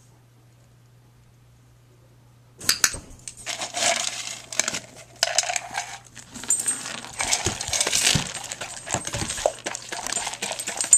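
A dog eating dry kibble from a plastic bowl: crunching, with the bowl and loose pieces clattering and clicking. It starts abruptly about three seconds in and keeps up irregularly.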